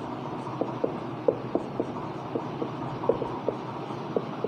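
Marker pen writing on a whiteboard: a string of short, irregular squeaks from the pen strokes, over a low steady hum.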